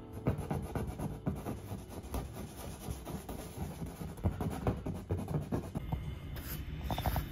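A hand rubbing and pressing across a painted canvas, giving irregular scratchy rubs and soft taps.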